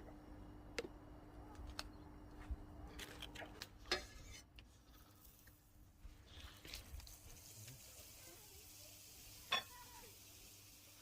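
Scattered clicks and taps of a utensil against a cast iron pan, the loudest about four seconds in and near the end, over a faint sizzle of pigeon breast frying in butter and lard that grows from about halfway through.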